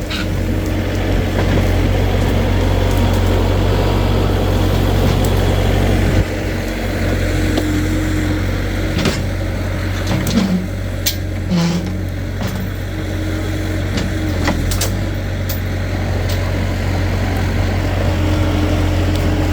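A motor vehicle's engine running steadily at low revs, with scattered knocks and rattles about halfway through.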